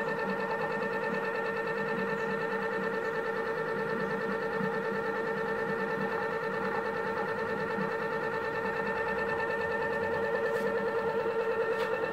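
Steady high-pitched electrical whine with a fast, faint pulsing, holding one pitch throughout: the coil drive of a homemade steel flywheel generator keeping the wheel spinning at constant speed.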